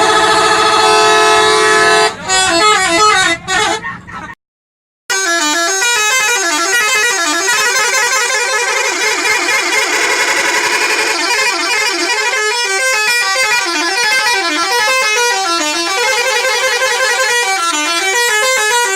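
Bus 'telolet' horn, a set of air horn trumpets sounding several notes together and playing a quick up-and-down tune. It opens on a held chord, breaks off for under a second about four seconds in, then plays a longer run of rapidly changing notes.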